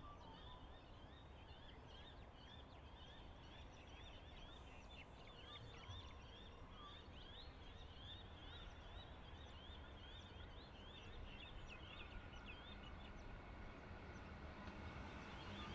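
Faint outdoor background with birds chirping: short, high notes repeated over and over. Near the end a train can be heard approaching, its rumble and hum growing louder.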